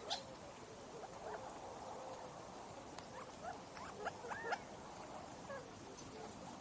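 Feeding quail giving scattered soft chirps and clucks, with a louder looping call about four and a half seconds in, over a faint steady hiss.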